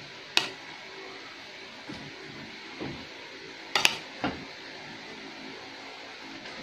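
Metal spoon clinking and scraping against ceramic plates as cooked ground chicken is scooped up and spread onto pita bread. A sharp clink comes just after the start, a quick pair of clinks about four seconds in, and softer taps in between.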